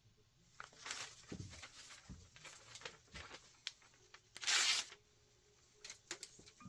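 Freshly sharpened boning knife slicing paper: several stretches of papery rustling and tearing, with one louder, sharper slice about four and a half seconds in, then a few light clicks near the end.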